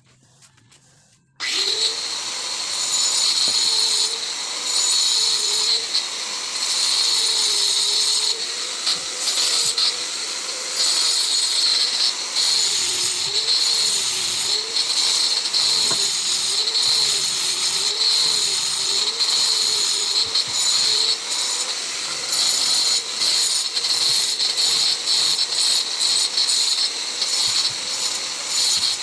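A handheld power tool starts abruptly about a second and a half in and runs loud and steady against a concrete hollow-block wall, cutting into the block for the wiring. Its pitch wavers up and down as the load changes, with brief dips throughout.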